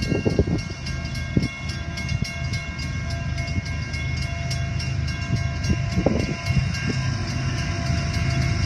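Mechanical railroad-crossing bell ringing in rapid, even strokes, its steady ringing tones running on beneath the strikes; the bell is said to be close to failing. A low rumble lies under it.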